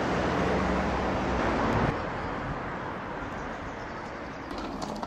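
Street traffic noise: a vehicle passing loudly for the first two seconds, cut off sharply, then a quieter hum of road traffic.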